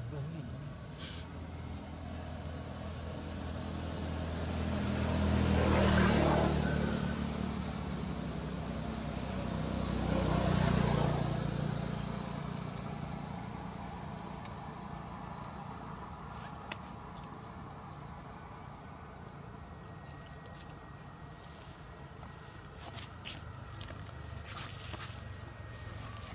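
Steady high-pitched drone of insects. Two vehicles pass, each swelling up and fading away, the first peaking about six seconds in and the second about ten to eleven seconds in.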